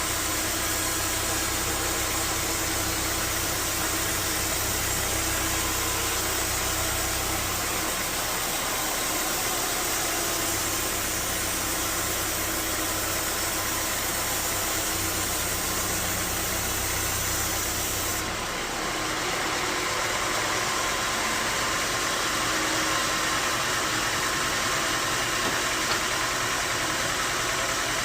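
Bandsaw sawmill machinery running steadily, with a dense mechanical hum and hiss; about two-thirds of the way through, the low hum and the high hiss both drop and the sound changes character.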